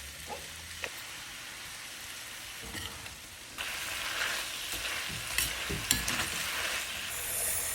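Seasoned chicken pieces sizzling and frying in a hot pan for a stir fry. The sizzle gets louder about halfway through, and a few short knocks of stirring follow.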